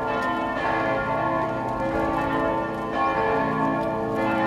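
Church bells pealing, several bells ringing over one another with their tones hanging on between strikes.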